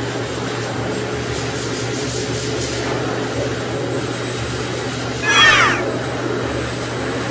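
Pet blow dryer blowing steadily, with one short, high whine from a husky puppy about five seconds in, falling in pitch.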